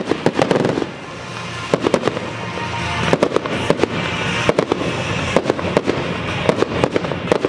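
Fireworks display: many sharp bangs and crackles of bursting shells over background music. The bangs thin out about a second in, then come thick and fast again from about three seconds.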